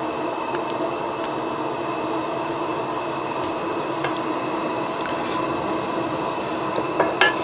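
Coleman camp stove and gas lantern burning with a steady hiss.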